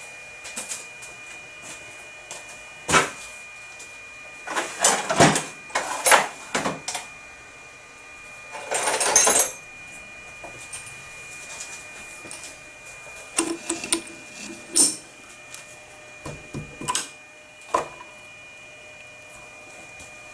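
Workshop handling noise: scattered knocks and clicks of tools and metal parts being moved, with a brief hiss about nine seconds in, over a faint steady high-pitched whine.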